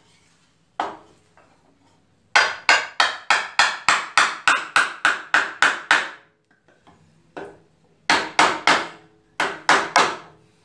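A small hammer tapping wooden joint pieces together, driving them into a tight fit. The sharp, slightly ringing strikes come about four a second: a long run, a single blow, then two short runs.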